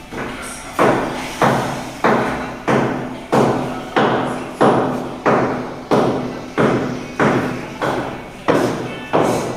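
Repeated heavy blows struck at a steady pace, about one and a half a second, each ringing out briefly before the next.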